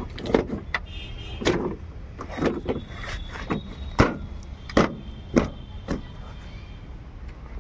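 Irregular knocks and clicks of a hard plastic car headlight housing as it is handled and pushed into its mounting in the front end, about a dozen in all.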